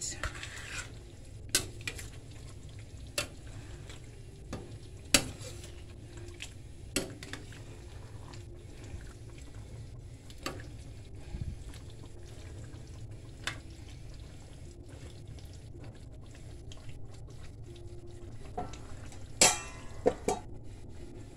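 A spoon stirring curry chicken in a stainless steel pan, the wet food shifting with scattered clicks of the spoon against the pan over a steady low rumble. A louder cluster of clatter comes near the end.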